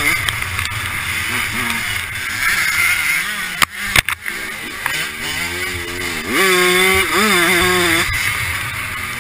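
Dirt bike engine with a freshly rebuilt top end, revving hard and rising and falling in pitch as it is ridden around a grass motocross track. A few sharp knocks come about three and a half to four seconds in. Near the end the revs climb steeply, hold high for a couple of seconds, then drop.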